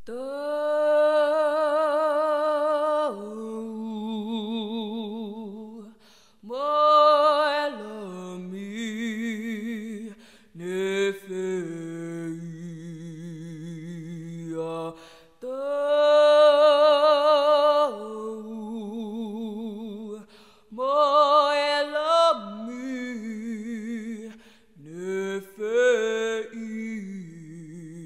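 Unaccompanied a cappella singing of a Tongan gospel hymn. It moves in phrases of long held notes with a wavering vibrato, with brief breaths between them every few seconds.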